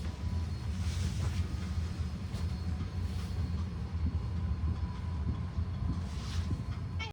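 Steady low rumble of a vehicle heard from inside, with a few faint swishes over it.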